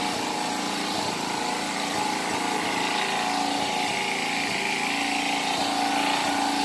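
Small engine-driven water pump running steadily, pumping floodwater out of the flooded fish ponds.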